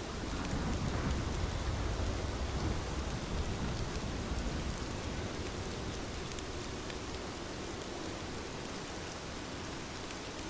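Steady rain falling, with a low rumble of thunder that swells in the first second and fades over the next few seconds.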